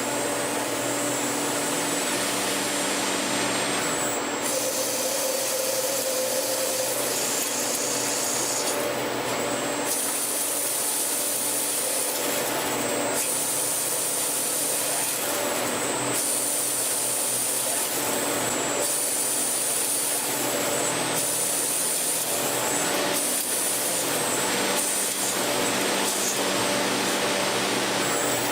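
CNC lathe running and cutting metal: a steady machining noise with a constant hum and a high-pitched whine. The character of the cut shifts every few seconds.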